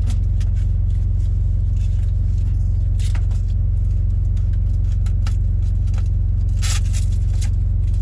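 Steady low drone of a semi truck's idling diesel engine, with scattered rustles and light knocks of cardboard packing inserts being handled; the loudest rustle comes near the end.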